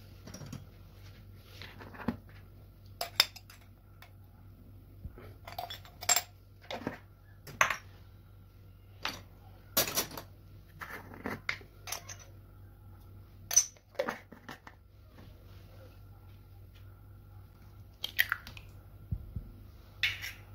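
Utensils clinking and knocking on a ceramic plate of chopped raw chicken, in irregular short taps with gaps between them, over a faint steady hum.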